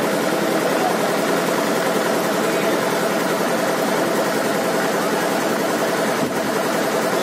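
A steady engine-like drone with a constant humming tone.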